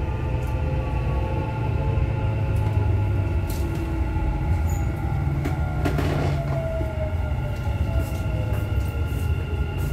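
Dubai Metro train running on its elevated track, heard from inside the car: a steady low rumble with the traction motors' whine tones sliding slowly down in pitch as the train slows. There is one brief sharp click about six seconds in.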